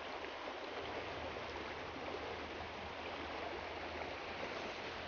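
Shallow, riffled small stream rushing over rocks, a steady even rush of water.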